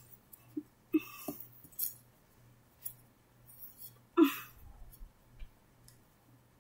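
A few brief, soft handling sounds as a plush toy is moved and set down on a rug, over a faint steady low hum.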